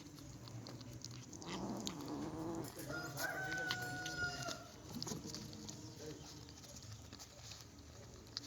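A rooster crowing once: a long call that rises into a steady held note and breaks off after about three seconds.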